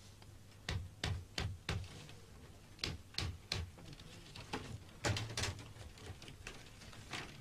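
Irregular sharp clicks and knocks of bamboo being split and worked by hand for basket weaving.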